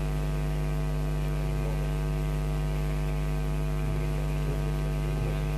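Steady electrical mains hum from the microphone and sound system, one unchanging low drone with many evenly spaced overtones.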